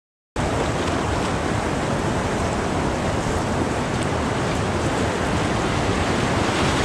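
Rushing whitewater of a river rapid heard close up from a kayak, a steady even wash of water noise. It cuts in abruptly about a third of a second in.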